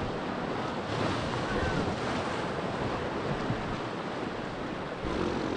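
River water rushing around a raft, a steady wash of noise, with wind buffeting the microphone.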